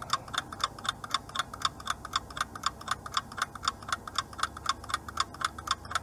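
Clock-ticking sound effect of a quiz countdown timer: even, rapid ticks, about five a second, counting down the time left to answer.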